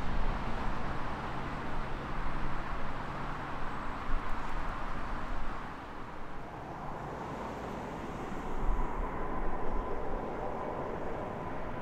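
Jet airliner engines on low final approach: a loud, continuous rushing roar that eases off about halfway through. A thin steady whine comes in later.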